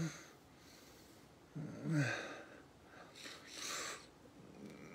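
A man makes a short wordless vocal sound about two seconds in, its pitch dipping and rising, followed by a breathy hiss of breath a second later.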